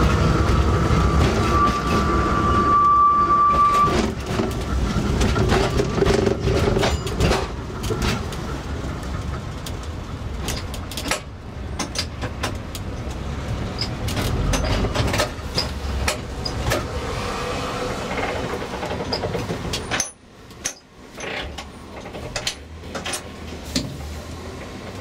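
Seaton Tramway's narrow-gauge electric tram running on its rails, with a low rumble, many sharp clicks and a brief high squeal about two seconds in. It grows quieter as the tram draws into the terminus.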